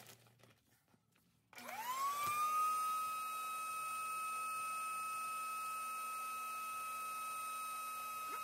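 A vacuum cleaner switches on about a second and a half in. Its motor whine rises quickly in pitch, then holds steady as the hose sucks the air out through the valve of a vacuum storage bag packed with clothes.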